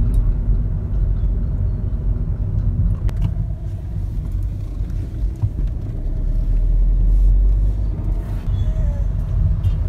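Steady low engine and road rumble heard from inside a moving car.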